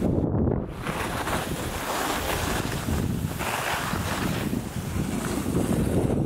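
Wind rushing over the microphone of a skier's camera, with skis hissing and scraping over tracked, packed snow on a downhill run. The scraping swells and eases every second or so.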